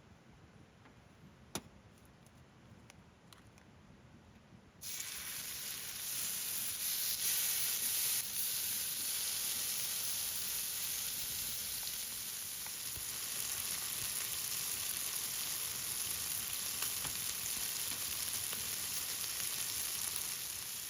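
Meat sizzling on a hot pan, starting suddenly about five seconds in after a quiet stretch with one click, and going on as a steady dense sizzle.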